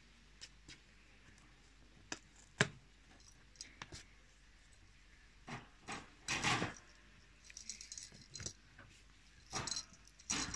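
Irregular clicks and metallic rattles from a wire pet cage and the plush cat house inside it as a kitten plays, with a few sharp single clicks early and longer scuffling rattles around the middle and near the end.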